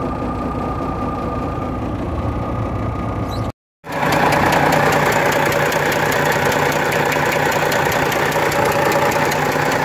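Volvo VNL 780 truck's diesel engine idling, with a rapid, regular knock in it; the sound breaks off briefly about three and a half seconds in and comes back louder. The knock came on suddenly while driving, the sign of the engine fault that broke down the truck.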